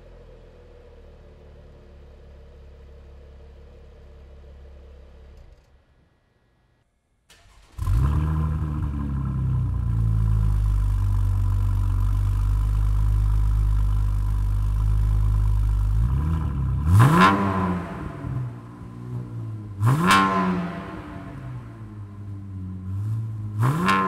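Chevrolet Camaro's 3.6 L LGX V6 idling quietly through the stock exhaust. After a brief silence, the same engine starts up much louder through a Mishimoto Race axle-back exhaust and holds a fast idle. It then gets three quick revs, about three seconds apart, dropping to a lower idle between them.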